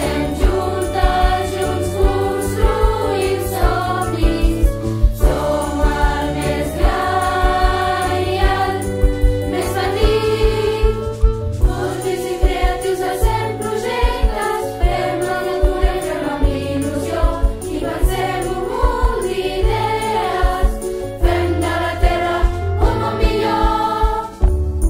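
A choir singing a school anthem in Catalan over an instrumental backing track with a steady beat.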